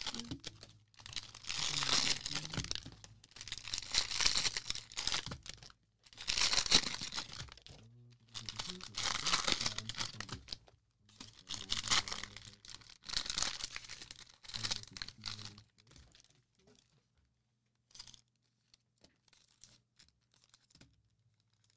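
Cellophane wrappers of Prizm football cello packs being torn open and crinkled by hand, in about seven spells of ripping and rustling that each last a second or two. Only a few faint ticks follow near the end.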